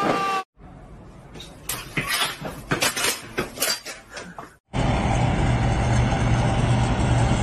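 A run of sharp clicks and knocks. About five seconds in, a semi truck starts running steadily with a low hum while it drives on its bare front wheel hub, its front tyre gone.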